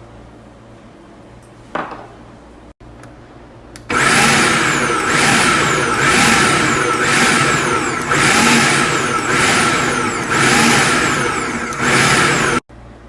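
Food processor motor running at full speed, its blade working flour and olive oil into a crumbly, sand-like mix. The sound swells and dips about once a second. It starts suddenly about four seconds in, after a single knock, and stops sharply near the end.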